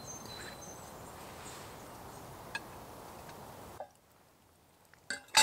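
Steady outdoor background noise with a faint high whistle near the start and a single click, then near silence, then a few sharp metal clinks near the end as the cast iron Dutch oven lid is worked with a lid-lifter.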